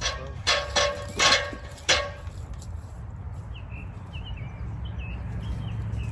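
A dog barking five times in quick succession, followed by a bird chirping faintly several times.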